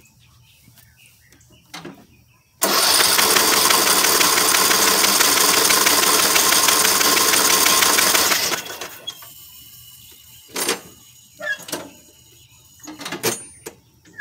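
Electric starter motor cranking the riding mower's engine steadily for about six seconds, then cutting off and spinning down without the engine firing, since no carburetor is fitted. The starting system is working. A few short clicks and knocks follow near the end.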